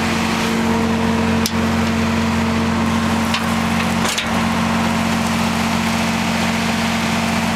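Vermeer BC 2000 brush chipper's engine running at a steady speed, with two brief knocks about a second and a half in and about four seconds in.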